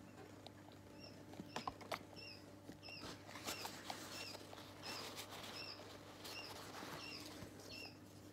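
Ring-necked parakeet chick giving short, high begging chirps over and over, about two a second, starting about a second in. A few sharp clicks and a rustling hiss sound alongside.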